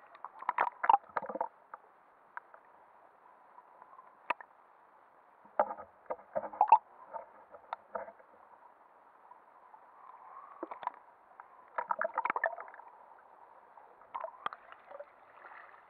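Sea water heard through a submerged action camera's waterproof housing: a faint, muffled hiss with irregular clusters of crackling clicks as the water moves and knocks against the case.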